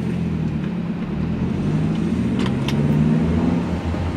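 Car engine running as the car moves off slowly: a steady low hum whose pitch drifts gently up and down, with a few faint ticks midway.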